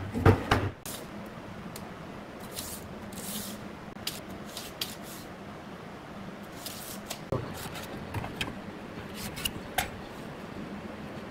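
Pine boards knocking down onto a plywood workbench at the start, then scattered short scrapes and ticks of a steel tape measure and a pen marking the wood, over a faint steady hum.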